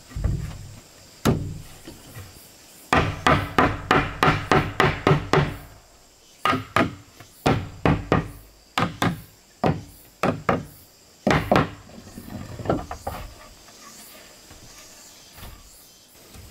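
Hammer blows on wood: a quick run of about a dozen strikes, roughly four a second, then slower, spaced blows that stop about three-quarters of the way through.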